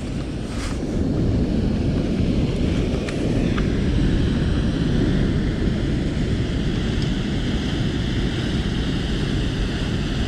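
Waterfall pouring into a reservoir: a steady rushing noise that grows louder over the first second or so, then holds.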